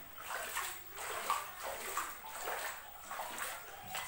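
Footsteps wading through shallow floodwater on a tiled floor, the water sloshing and splashing in uneven surges about twice a second.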